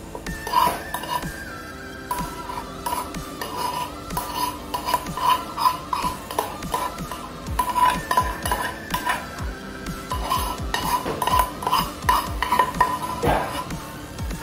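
A spoon and spatula scraping and clinking against a wok and a ceramic bowl as cooked chili sambal is scraped out and stirred, in many irregular short strokes. Background music plays under it.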